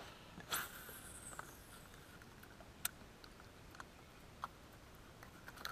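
A fishing cast: a short whoosh about half a second in, then the high whine of line paying off the reel, falling in pitch as the spool slows. A few faint, scattered clicks follow.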